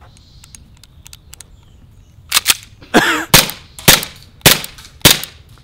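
Elite Force 1911 CO2 blowback airsoft pistol firing a quick string of about six sharp shots, roughly two a second, starting about two seconds in.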